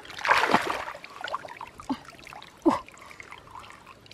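Muddy water splashing and trickling as hands grope in shallow water inside a bamboo fish trap, loudest just after the start. A few short downward-sliding chirps sound through it.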